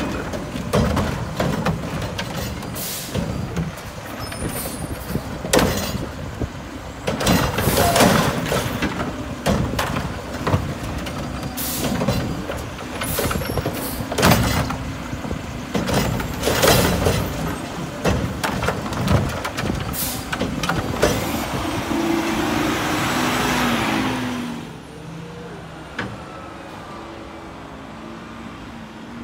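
Diesel Mack LR garbage truck running while its Heil Curotto-Can arm lifts and dumps wheeled plastic trash carts, with repeated sharp bangs and knocks as the carts are shaken out and set down. The noise drops off sharply about four-fifths of the way in as the truck moves away.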